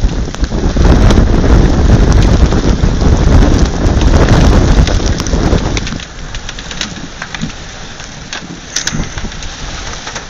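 Heavy rain with a loud low rumble for about the first six seconds, which drops away abruptly, leaving steady rain with scattered drops ticking.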